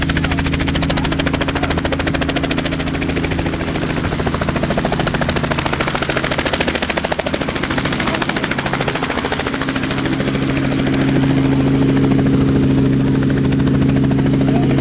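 Light helicopter running close by: a fast, steady rotor chop over a steady engine drone, getting louder about eleven seconds in.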